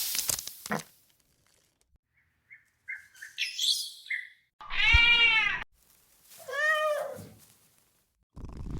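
Two drawn-out, meow-like cries, each rising then falling in pitch, about a second apart, after a few faint high chirps.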